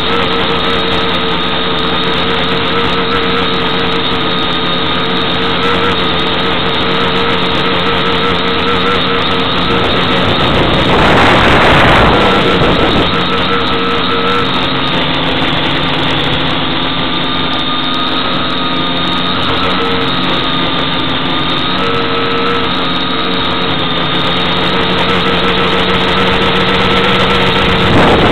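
Quadcopter's electric motors and propellers running in flight, heard from the onboard camera: a loud steady drone whose pitch wavers slightly. A louder rushing noise rises briefly about eleven seconds in.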